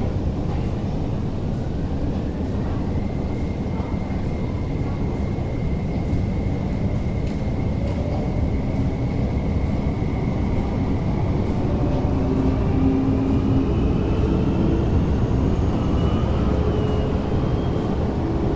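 MTR Tuen Ma Line electric train pulling out of an underground station behind platform screen doors. Its traction motors give a whine that climbs in pitch as it accelerates, over a steady rumble.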